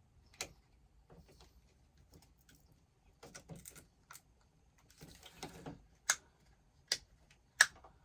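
Hand work on vehicle wiring: scattered sharp clicks and short bursts of rattling clatter from tools and small parts being handled. The three loudest clicks come close together near the end.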